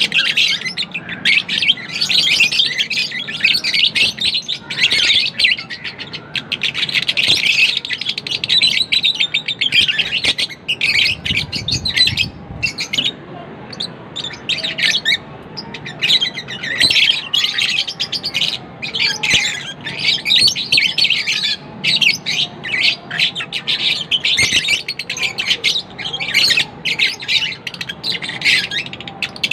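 Lovebirds chirping rapidly and almost continuously in dense, high-pitched, overlapping calls, with a brief lull about halfway through.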